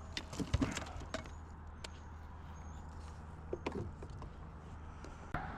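Scattered light knocks and clicks of a fish being handled and landed in a kayak, irregular and short, with a low steady hum under them.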